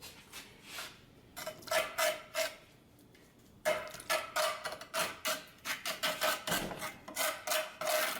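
Grout being mixed by hand on an old ceramic tile, a tool scraping and stirring the wet powder against the tile's hard surface in repeated strokes. A few strokes come first, a short pause, then a quicker run of about two scrapes a second.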